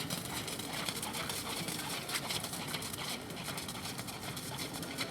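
Hoofbeats of a ridden Thoroughbred horse moving on arena footing, heard among many irregular light ticks.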